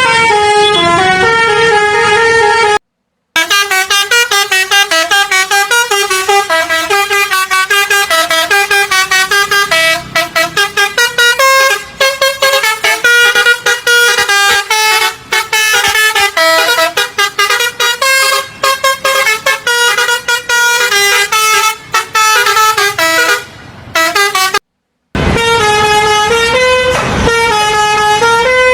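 Telolet musical bus horn of the Basuri type, a multi-trumpet air horn playing a fast run of changing notes like a tune. It stops for a moment twice, about three seconds in and again near the end.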